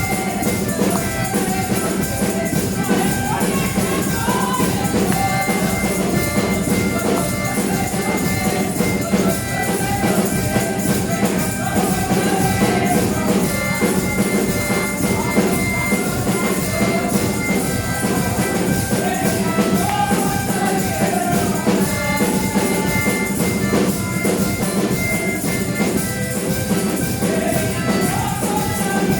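Church praise music with drums and tambourine keeping a steady beat under a melody.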